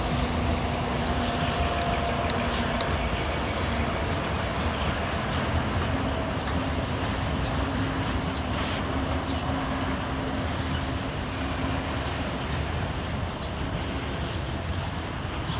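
Freight train of hopper wagons rolling along the track, a steady rumble of wheels on rail with a faint steady whine over it, easing off slightly near the end as the wagons move away.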